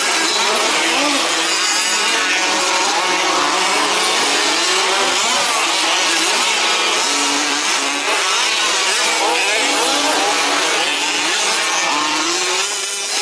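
Several 1/5-scale petrol RC off-road trucks' small two-stroke engines buzzing and revving together as they race, their pitches rising and falling as they speed up and slow down.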